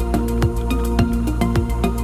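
Background electronic music: held synth chords over a steady beat of about two drum thumps a second.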